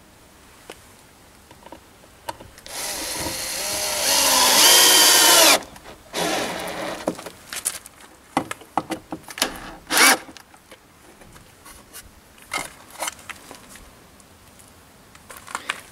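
Cordless drill-driver running into a wooden sign on a timber wall. One long run about three seconds in, its motor whine climbing in pitch, then a shorter run and a string of short bursts and clicks.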